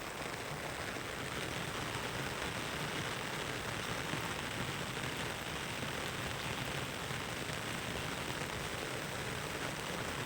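Heavy rain falling steadily, a dense even hiss of drops with fine pattering throughout.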